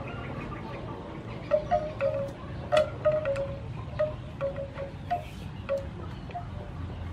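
Small knife cutting and peeling a cucumber: sharp light clicks of the blade, over a scatter of short ringing notes and low wind rumble on the microphone.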